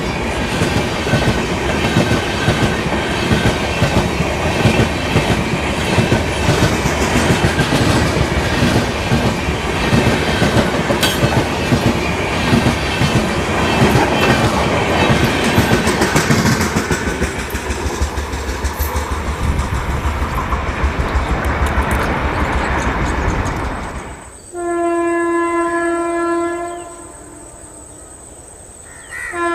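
Passenger train of LHB coaches passing, wheels clattering rhythmically over the rail joints, the clatter thinning out in the second half. About 24 s in the clatter stops abruptly and a locomotive horn sounds a steady blast for about two seconds, then sounds again at the very end.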